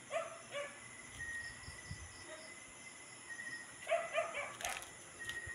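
A poisoned dog giving short, high yelps in two clusters, near the start and again about four seconds in, followed by a few sharp clicks, over a faint steady high tone.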